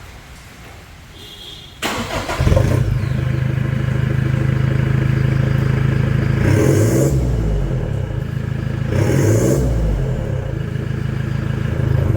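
Toyota Hilux GR's engine started through an HKS downpipe and cat-back dual side-exit exhaust: a brief crank about two seconds in, then it catches and idles steadily, with two short revs blipped up and back down in the middle.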